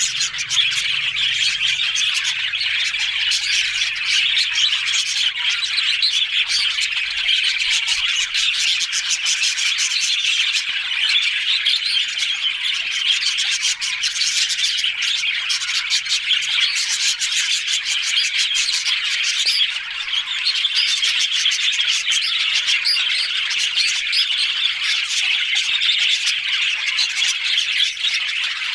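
A flock of budgerigars chattering and warbling without pause, a dense stream of quick chirps, clicks and squawks.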